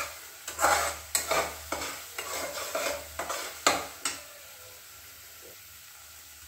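Metal spatula scraping and stirring a thick onion-tomato masala paste frying in a stainless steel pot, with about seven scrapes over the first four seconds. After that only the masala's faint, steady sizzle remains.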